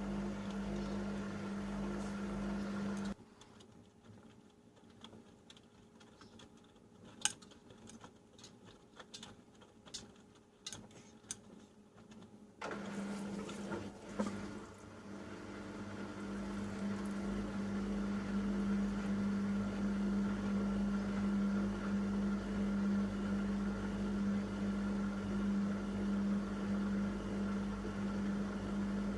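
Panasonic NA-147VB2 inverter washing machine's drum motor running with a steady hum. It stops about three seconds in, leaving a quieter pause with several clicks and knocks. The motor starts again a few seconds before the midpoint and builds to a louder, steady hum.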